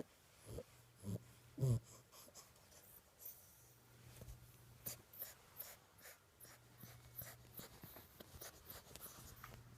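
Six-week-old boxer puppy snoring: short snores about twice a second in the first two seconds, then fainter breathing. Scratchy rustling and clicks take over from about three seconds in.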